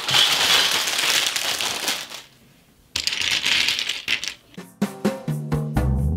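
Loose plastic LEGO pieces clattering and rattling as hands spread and sift through a pile of them on a tabletop, in two spells with a short pause between. Piano music comes in about a second and a half before the end.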